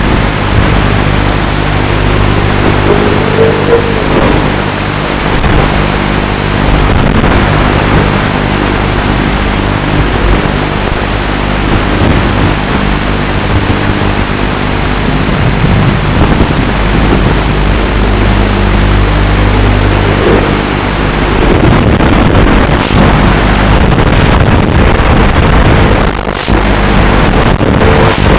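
FPV racing quadcopter's motors and propellers whirring steadily in flight, with a rush of air noise over them; the sound shifts and grows more uneven in the last third.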